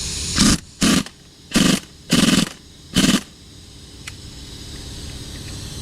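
Impact wrench running in five short bursts, tightening bolts on a tractor's rear wheel hub.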